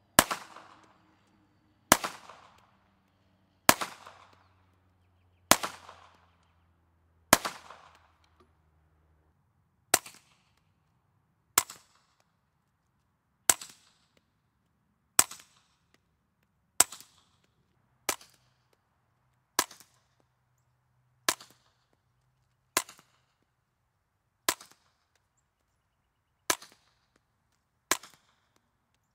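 Ruger PC Carbine firing 147-grain 9mm subsonic rounds. It fires five unsuppressed shots, loud and about two seconds apart, each with a long echoing tail. Then comes a run of about a dozen shots through a Bowers ASP45 suppressor, noticeably quieter, with short tails.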